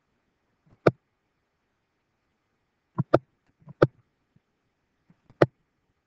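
Computer mouse clicking, about five sharp single clicks with a quick pair about three seconds in, as digits are clicked into an on-screen calculator.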